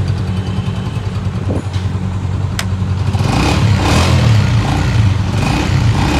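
Honda CG125's single-cylinder four-stroke engine running at idle through its exhaust, then getting louder from about halfway in repeated throttle blips. A single sharp click about two and a half seconds in.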